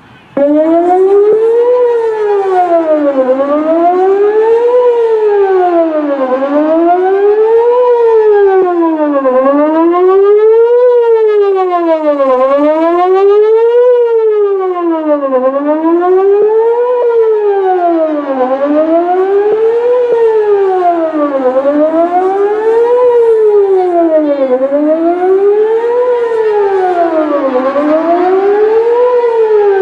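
Whelen WPS-4004 electronic outdoor warning siren sounding its monthly test: it comes on suddenly at full volume and wails, its pitch rising and falling steadily about once every three seconds.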